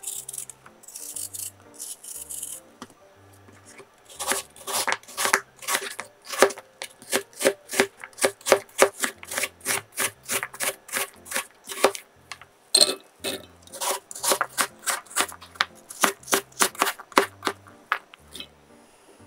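A knife dicing peeled apple on a cutting board: quick, even chopping strokes, about four a second, starting about four seconds in. Before that, a few soft scraping cuts of a paring knife through apple peel. Quiet background music runs underneath.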